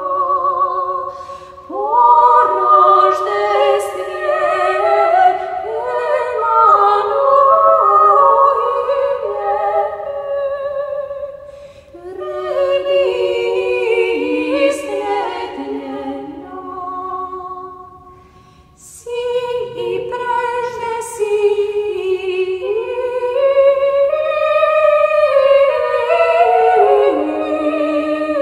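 Unaccompanied choir singing a sacred hymn in long, slow phrases. It pauses briefly between phrases about a second in, about twelve seconds in and about eighteen seconds in.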